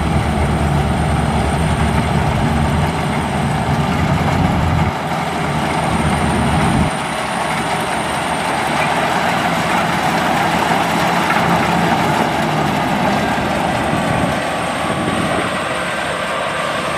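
Maxxi Bimo rice combine harvester running steadily while harvesting, its engine and threshing machinery making a continuous mechanical noise. A heavy low rumble drops away about seven seconds in.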